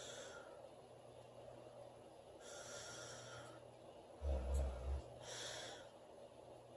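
A woman snoring in her sleep: one loud snore lasting under a second, about four seconds in, with softer breathy breaths before and after it.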